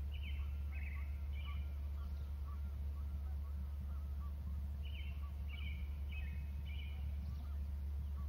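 A bird calling in two bursts of about four short, high notes each: one near the start and one about five seconds in. A steady low hum runs underneath.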